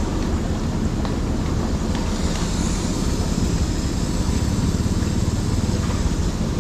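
Steady rushing and bubbling of water in a plastic tub, churned into froth by air hoses for aeration, over a low steady drone.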